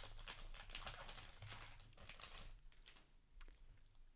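Soft clicks, taps and light rustling of Magic: The Gathering trading cards being handled, squared up and set down. The taps are thickest for the first two and a half seconds, then only a few scattered clicks.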